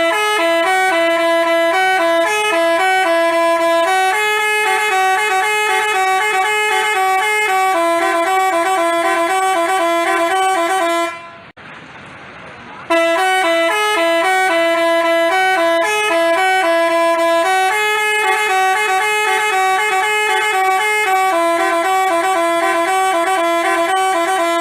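Telolet basuri musical bus horn playing a stepping multi-tone melody, in two long phrases of about eleven seconds each with a pause of about a second and a half near the middle.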